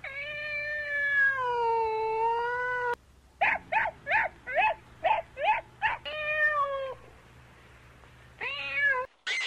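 Domestic cat meowing: one long drawn-out meow for about three seconds, then a quick run of about eight short, high calls and two more meows near the end.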